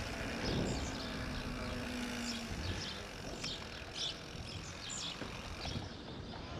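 Giant Reign mountain bike rolling on pavement: steady tyre and wind noise, with birds chirping now and then over it.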